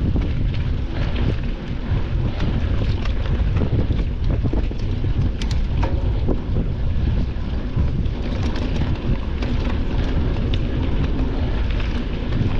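Wind buffeting the microphone of a mountain biker's camera while riding, a steady low rumble, with scattered clicks and rattles from the bike over rough ground.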